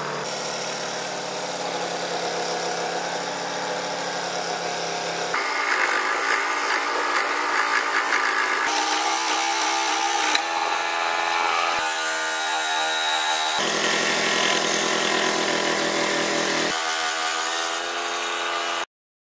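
Benchtop scroll saw running and cutting through wood, a steady machine hum with overtones whose tone shifts abruptly several times. It cuts off suddenly near the end.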